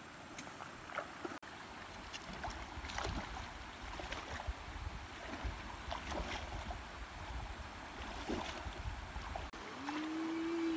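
River water splashing irregularly around a person's legs as she wades in from the bank, over a low rumble. Near the end comes a short rising hum.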